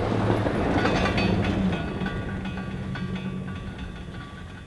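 Pickup truck driving past on a dry dirt track, engine and tyres on loose dirt, loudest about a second in and then fading as it pulls away.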